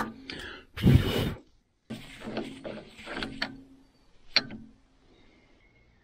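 A brush scrubbing sawdust off the steel frame and gearbox housing of a homemade sawmill, loudest about a second in, with a brief gap and then more scraping. A single sharp click comes a little after four seconds.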